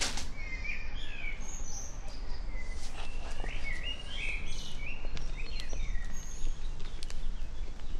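Small birds chirping and calling in quick, short phrases, busiest in the first half, over a steady low background rumble.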